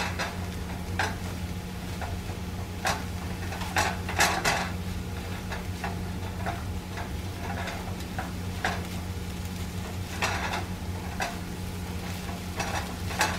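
Plastic spatula stirring and scraping peas, carrots and onions around a nonstick skillet, with irregular scrapes and taps against the pan over a low sizzle of the vegetables sautéing in butter. A steady low hum runs underneath.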